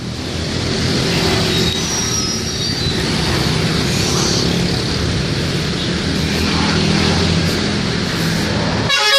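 A bus engine runs steadily in heavy traffic, with road noise. Right at the end, a telolet multi-tone horn starts its warbling tune.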